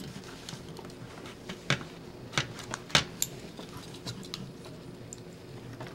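Irregular small clicks, snaps and scrapes of hard plastic R/C car body parts being worked and pried apart by hand, with a few louder clicks in the middle.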